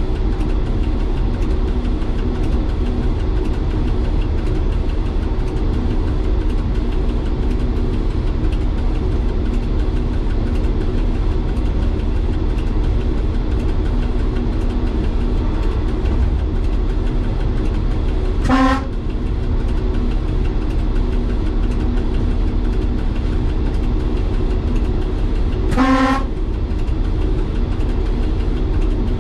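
Diesel engine of an MVTV-2 overhead-line railcar running steadily under way, heard from the cab, with two short horn blasts, the first about two-thirds of the way through and the second about seven seconds later.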